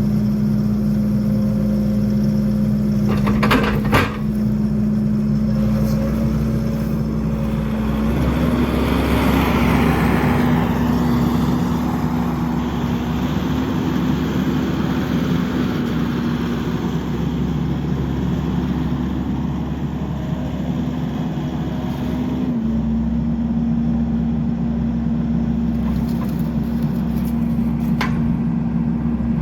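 Skid steer engine running steadily, its speed stepping up about eight seconds in and easing back a little after twenty-two seconds. A sharp knock sounds about four seconds in.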